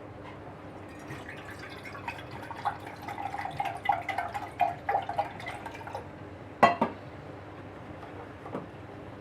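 Liquid dripping and trickling into a glass in irregular small splashes, followed by a single sharp clink a little before the end.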